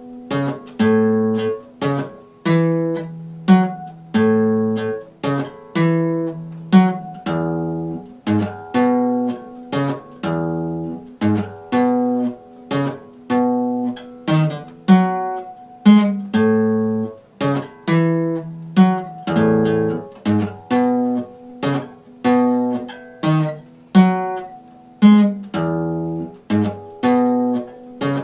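Epiphone acoustic guitar strummed in a steady rhythm, the chord changing every second or so.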